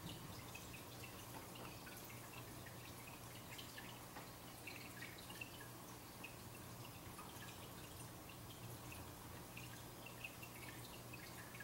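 Quiet room tone: a steady low electrical hum with faint, irregular little ticks scattered throughout.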